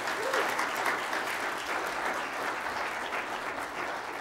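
Church congregation applauding: many hands clapping together at a steady level.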